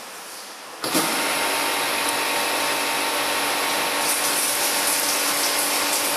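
The water pump of a pipe-flow test rig switches on about a second in and runs steadily with a constant hum and hiss, driving water through the pipework to the nozzle.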